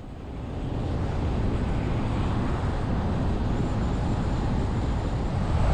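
Low, steady rumble of a vehicle driving on a highway: engine and tyre noise. It builds over the first second or so, then holds level.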